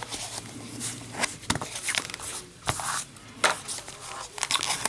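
Handling noise from a cardboard lighter box and a brass Zippo lighter: light rustling and scraping broken by several sharp clicks and taps.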